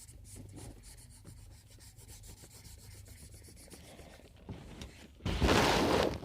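Coloured pencil rubbing on paper as a drawing is shaded in, a faint fine scratching; about five seconds in, a much louder rubbing noise for about a second.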